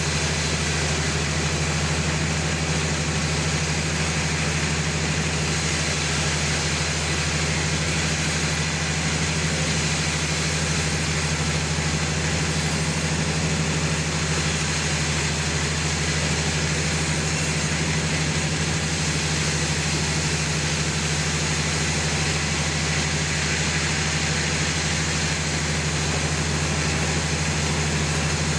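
Sawmill machinery running steadily: a constant low hum with an even hiss above it, unchanging throughout.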